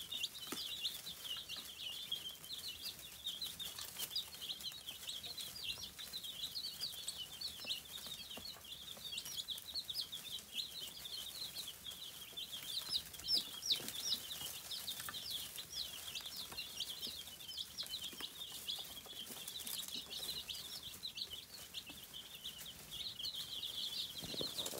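A brood of baby chicks peeping non-stop: many short, high-pitched peeps overlapping one another.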